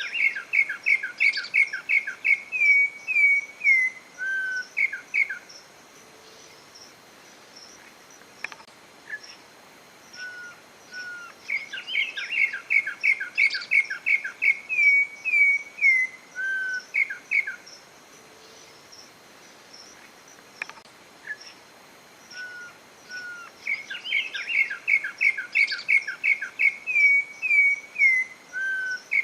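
Campo troupial (corrupião) singing: a phrase of quick, clear whistled notes lasting about five seconds, repeated three times about twelve seconds apart.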